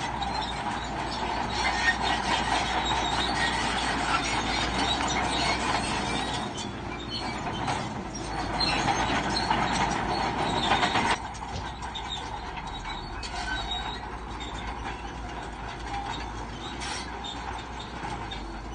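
Bulldozer working, its engine running under the clank and squeal of its steel crawler tracks; the sound drops abruptly to a lower level about eleven seconds in.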